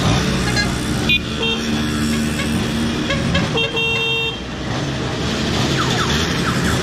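Two-stroke Simson mopeds and a Trabant car running past in a steady procession. A vehicle horn sounds twice, briefly about a second in and again a little longer just after three and a half seconds.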